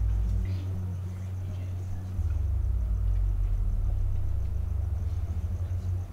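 Muffled, bass-heavy dance music: little but the low end comes through, pulsing in a fast beat that changes about two seconds in.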